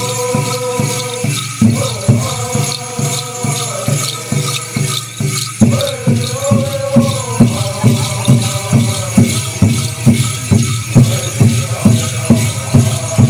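Animal-dance song: a chorus singing in long held notes over a steady drum beat of about two strokes a second, with rattles shaken in time with the drum. The drum strokes grow louder about halfway through.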